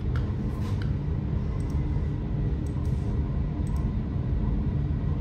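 Rotax 912iS flat-four engine running at a low idle on the dyno after a power sweep, a steady low rumble heard through the control-room glass, with a few light clicks.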